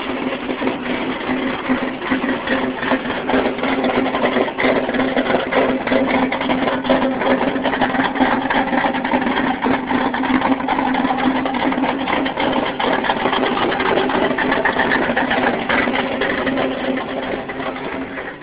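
An engine running steadily with a fast, even mechanical rattle.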